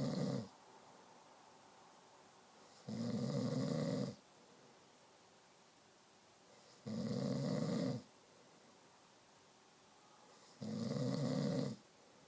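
Snoring in a slow, even rhythm: a snore about every four seconds, each lasting about a second, with quiet in between. A snore is ending right at the start, and three full snores follow.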